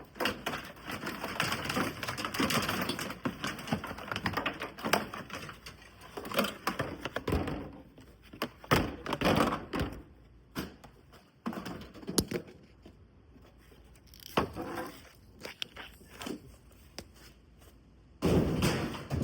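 Irregular knocks, clicks and crinkling from hands-on work inside a car: plastic interior trim and loose debris being handled and pulled out. The sounds are dense at first, then become sparse separate knocks.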